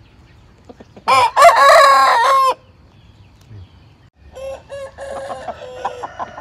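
Rooster crowing once, loud, starting about a second in and lasting about a second and a half. Fainter rooster calls follow in the second half.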